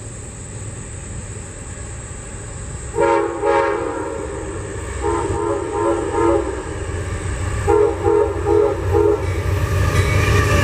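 Amtrak GE Genesis locomotive approaching: its diesel rumble grows louder as its horn sounds about three seconds in, a first blast followed by two groups of short, quick toots. Near the end the rumble of the train arriving builds.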